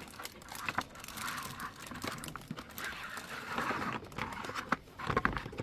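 Hard plastic play-kitchen panels being handled and fitted together: irregular clicks and knocks over a rustling, scraping sound.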